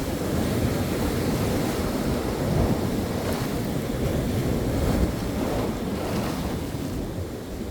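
Ocean surf, waves washing in as a steady rushing noise, with wind rumbling on the microphone. The sound eases a little near the end.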